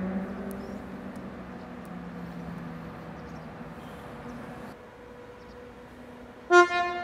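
Electric passenger train arriving slowly, its steady low electric hum fading over the first few seconds, then one loud horn blast of about a second near the end.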